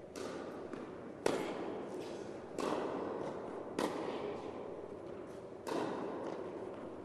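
Tennis rally: a ball struck by rackets and bouncing on a hard court, five sharp hits a second or so apart, each echoing in a large indoor hall.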